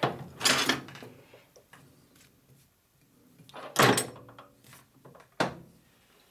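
Metal clunks and scraping as a drill chuck on its taper arbor is handled and pushed into the lathe's taper: a clunk about half a second in, a louder knock near four seconds, and a short sharp knock about five and a half seconds in.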